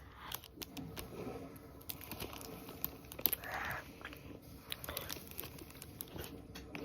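Close-up eating of a soft, sticky strawberry mochi ice cream: scattered small wet mouth clicks and smacks while chewing, with a soft crinkle now and then.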